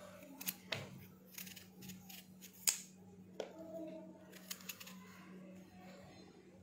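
Kitchen knife cutting the rind of a wedge of raw pumpkin by hand: a run of short, irregular crisp cuts, the sharpest about two and a half seconds in.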